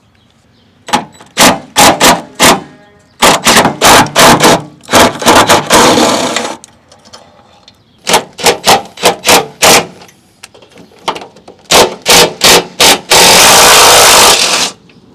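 Power wrench loosening the 14 mm bolts on a muffler hanger bracket: many short, loud bursts in quick clusters, then one longer run of about a second and a half near the end as a bolt spins out.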